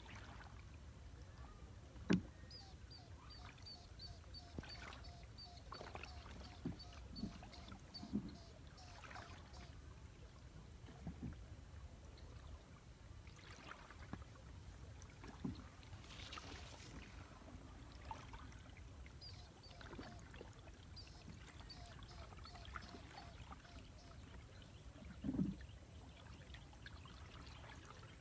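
A small hand-propelled boat moving slowly through still water, with occasional soft knocks and splashes from the strokes, the loudest about two seconds in and again near the end. A low rumble runs underneath.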